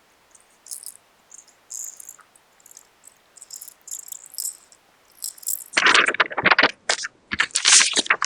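Crinkly craft materials being handled: light, high-pitched rustling and clicking, then from about six seconds in, loud crinkling and crackling in quick bursts.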